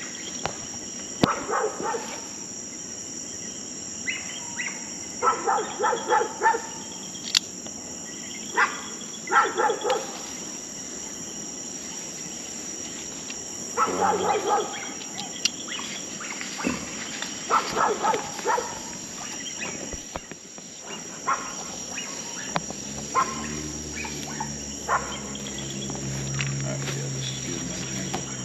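Crickets and other night insects chirring steadily in a high, thin band. Clusters of short pitched sounds rise above them several times, and a low hum comes in over the last few seconds.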